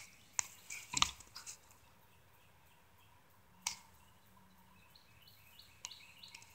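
A few sharp clicks and knocks of handling in a pickup truck's cab as the driver's door is opened, sparse and separated by quiet.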